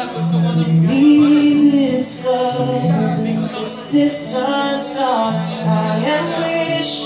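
A man singing a slow melody with long held notes, accompanied by a strummed acoustic guitar, performed live.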